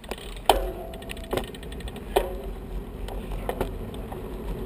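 Bicycle riding along a paved path: steady tyre rumble and wind on the microphone, with three sharp knocks in the first two and a half seconds, two of them followed by a brief ringing tone, as the bike jolts over the surface.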